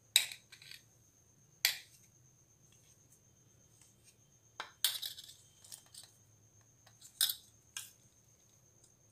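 A metal spoon scraping and knocking against the inside of a stainless-steel mixer-grinder jar, in several short, sharp metallic strokes with pauses between, as ground sesame chutney is scooped out.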